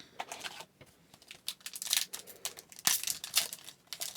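Trading-card pack wrapper crinkling and tearing as a new pack is opened: a run of irregular crackles, loudest from about two seconds in.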